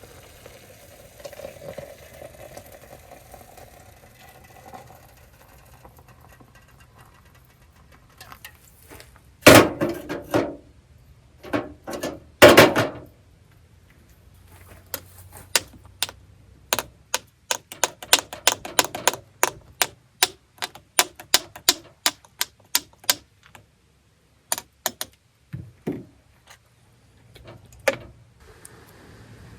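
Two loud knocks a few seconds apart, then a long run of sharp clicks, about two or three a second for some ten seconds, with a few stray clicks near the end.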